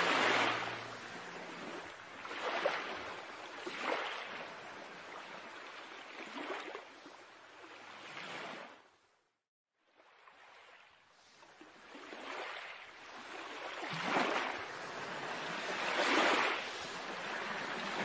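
Sea waves washing in and breaking against a rocky shore in repeated swells, one every second or two. The sound drops out to silence for about a second halfway through.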